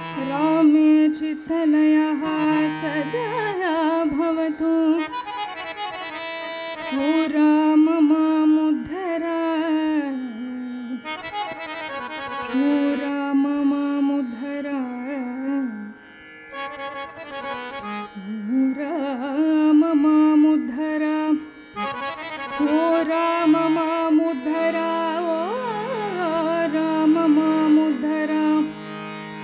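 Women's voices singing a Carnatic-style devotional bhajan with ornamented, gliding melodic lines, accompanied by a harmonium holding steady reed tones beneath them.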